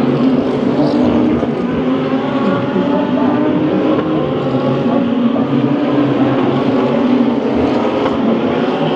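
Several DTM GT3 race cars' engines running at racing speed, their overlapping engine notes forming a loud, steady din.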